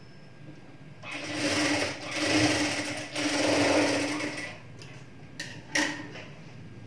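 Electric sewing machine stitching a tuck in blouse fabric, running in three short runs with a steady hum starting about a second in, then two brief stitches near the end.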